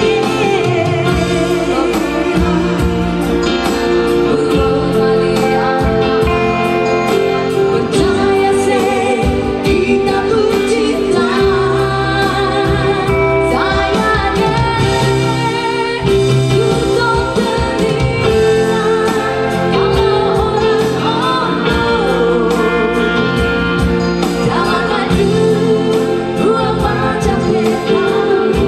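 A man and a woman singing a love-song duet into microphones over amplified electronic keyboard accompaniment, with held, wavering sung notes.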